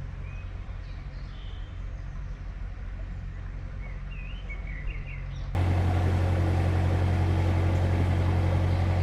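Narrowboat's diesel engine running steadily, with birds chirping faintly over it in the first half. About five and a half seconds in the engine hum becomes suddenly louder.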